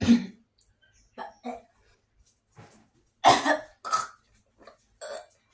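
A boy coughing and clearing his throat in a series of short bursts, the loudest a little after halfway through: a reaction to the taste of Marmite eaten on its own.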